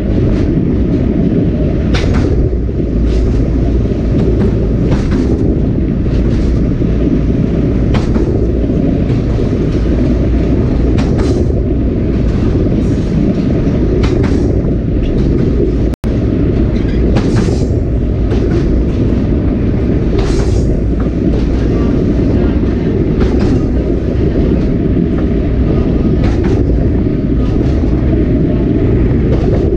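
Sagano Romantic Train's SK200 passenger car running along the track: a steady low rumble with irregular clicks and knocks from the wheels on the rails. The sound cuts out for an instant about halfway through.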